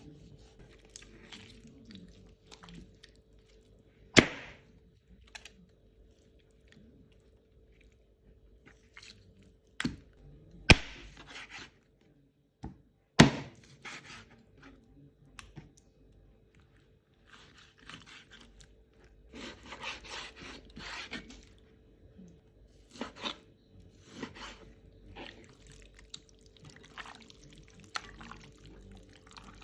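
Kitchen prep handling sounds: scattered knocks, clatters and scrapes of utensils and cookware, with three sharp loud knocks about four, eleven and thirteen seconds in, over a faint steady hum.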